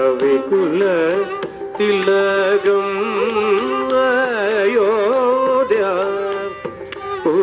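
Carnatic music for a varnam in raga Pantuvarali, Adi tala: an ornamented melody that bends and shakes around its notes, held over a steady drone. The phrase breaks off briefly about two seconds in and dips again near the end.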